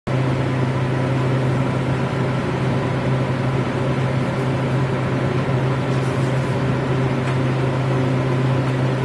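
Conveyor pizza oven's blower running, a steady drone with a strong low hum.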